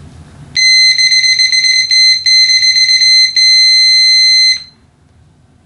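Continuity beeper of an Infurider YF-36K multimeter sounding with the test leads shorted. It is a loud, steady, high-pitched tone that starts about half a second in, drops out briefly a few times, and cuts off about four and a half seconds in.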